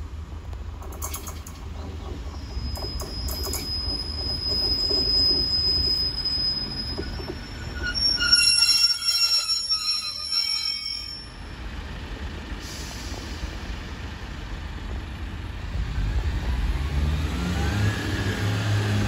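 Class 143 Pacer and Class 150 diesel multiple units rolling into the station under braking: a low rumble of wheels and engines, with high ringing brake and wheel squeal about a quarter of the way in and loudest around the middle. Near the end the low engine note grows louder, with a tone rising in pitch.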